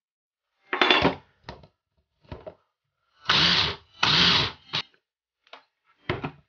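Electric mini chopper pulsed in a series of short bursts, two of them longer, about half a second each, in the middle. Its blade whirs through flour, cold butter and water in a plastic bowl as the pie dough comes together into crumbs.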